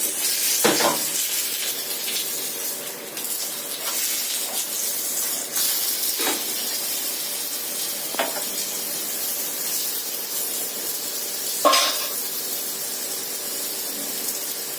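Egg pouch sizzling steadily as it fries in oil in a pan. A handful of short knocks of a spatula against the pan come through, the sharpest a little under three seconds before the end.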